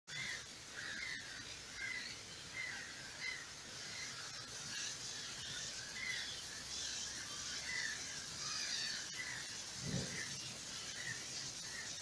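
Short chirps repeating about once a second, over a steady high hiss, with one soft low thump about ten seconds in.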